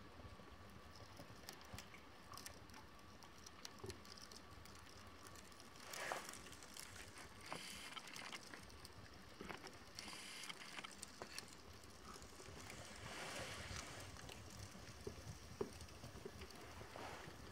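Pages of a stamp album burning, paper and card crackling faintly with scattered small pops and a few louder rushing swells as the flames flare.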